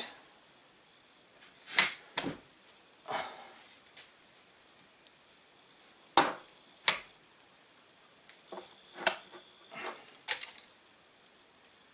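Irregular knocks, clicks and a brief scrape of wood and metal as an M1 Garand's barreled action is pushed and worked into its wooden stock. The parts bind because the guide rod is fitted upside down.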